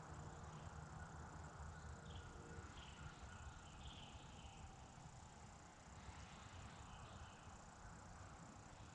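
Near silence: faint outdoor ambience with a low steady rumble, broken by a few short, faint high chirps partway through and again near the end.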